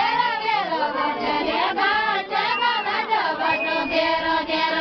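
A group of women's voices singing a deuda folk song together, with many voices overlapping.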